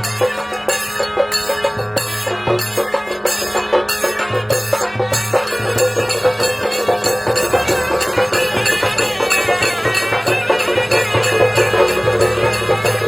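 Background music with a fast, steady percussion beat and a melody in a traditional folk style.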